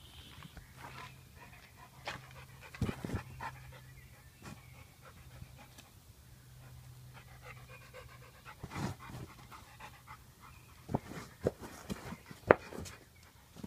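An American Staffordshire Terrier × Dogue de Bordeaux mix panting while it plays with a ball, with a few sharp knocks, the loudest and closest together near the end.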